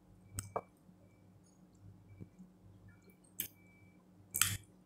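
Close-up eating sounds: a few soft clicks and wet mouth smacks while chewing and handling food with the fingers, the loudest a short, noisier smack near the end.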